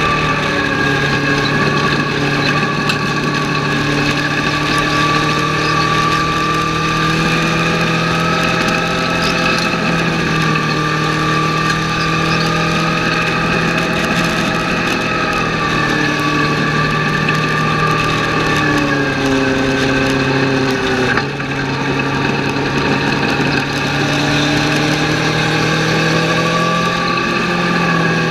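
Legends race car's Yamaha four-cylinder motorcycle engine running hard, heard from inside the cockpit, its revs rising and falling through the corners. The revs drop for a couple of seconds and the sound breaks off briefly about two-thirds of the way through, then the revs climb again.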